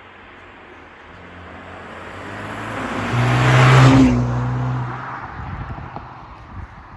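Mercedes-AMG CLA 35 with its turbocharged four-cylinder engine and stock exhaust, driving past under power. The sound builds from about a second in, peaks loudest around four seconds in, then fades quickly as it goes by.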